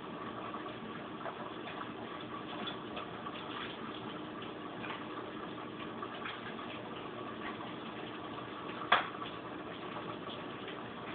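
Cooking at a stove: a steady hum with light ticks and clinks from the pan and utensils, and one sharp click about nine seconds in.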